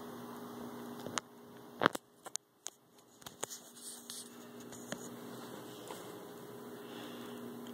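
A steady low electrical hum with a few scattered soft clicks and rustles, mostly in the first half.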